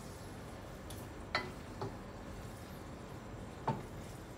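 A spatula knocking against the side of a pot while stirring frying beef cubes: three knocks, two of them sharp, over a faint steady hiss.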